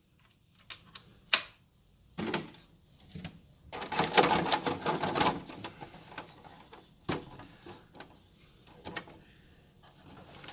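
Plastic RC truck parts being handled and fitted: a few separate clicks, then a stretch of rattling and scraping from about four to five and a half seconds in, as the push bumper is pressed onto the front bumper.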